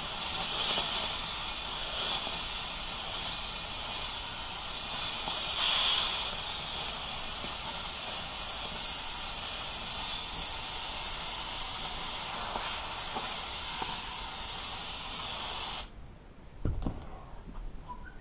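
Handheld upholstery steamer hissing steadily as it blows steam onto a boat-seat cover to heat the material and shrink out a wrinkle. The hiss cuts off suddenly near the end, followed by a single thump.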